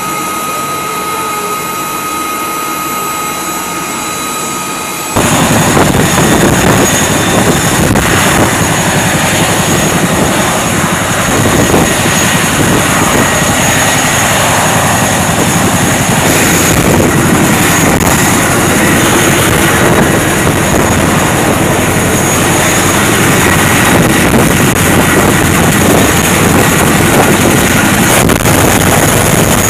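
Aircraft turbine noise on a flight line: a steady whine with thin high tones. About five seconds in it jumps abruptly to a much louder, dense rushing noise that then runs on steadily.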